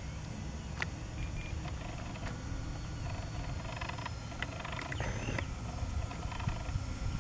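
Radio-controlled scale model Twin Otter flying high overhead: a faint, steady motor drone under a low rumble, with a few light clicks.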